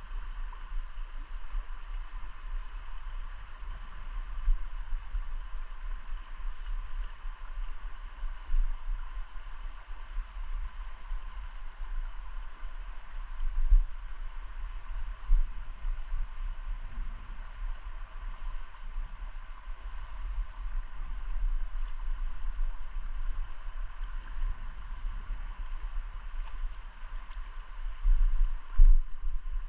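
Steady rush of a flowing river running over riffles, with an uneven low rumble underneath and a few louder knocks near the end.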